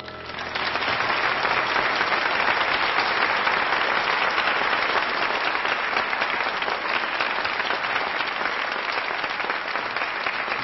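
Studio audience applauding: dense clapping that swells up within the first second after the last piano note, then holds steady, easing a little near the end.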